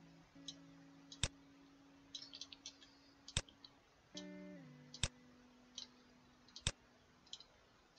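Several sharp computer mouse clicks at uneven intervals, with some lighter clicking in between, as points are placed on a mesh in a 3D modelling program. Under them runs faint acoustic-guitar background music holding long notes that change about four seconds in.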